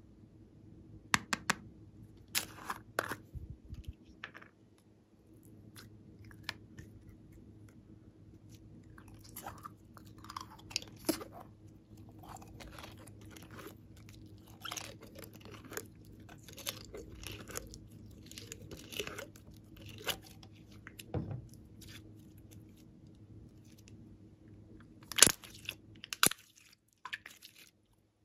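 Clear blue slime handled out of its plastic bottle and stretched, making many short sticky crackles and pops. There are a few sharp clicks in the first seconds as the bottle's cap is worked open, and two louder snaps near the end.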